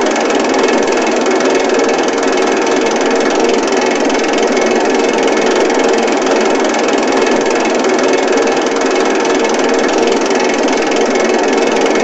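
A machine rotating at a constant speed: an even mechanical running noise with a steady hum that does not change in pitch or level.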